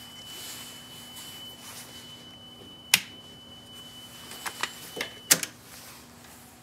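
Steady 3 kHz speed-calibration tone from a cassette test tape playing in a Marantz 5220 deck, with sharp handling clicks from the multimeter and its test leads. The tone cuts off at a loud click about five seconds in.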